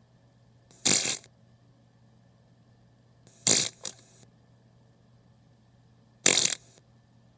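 Three short fart sounds about two and a half seconds apart, each a brief blast. The middle one ends with a small second puff.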